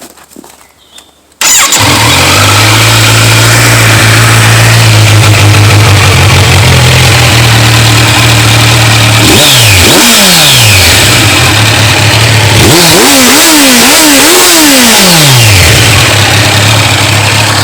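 Kawasaki Z900's inline-four engine through its stock exhaust. It comes in abruptly at a steady idle, is revved once about ten seconds in, then gets several quick throttle blips in a row before settling back to idle.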